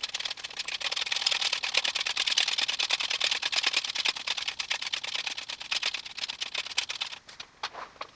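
A fast, even run of sharp clicks from a tool working on the car's hub parts, lasting about seven seconds, then thinning to a few separate clicks and stopping near the end.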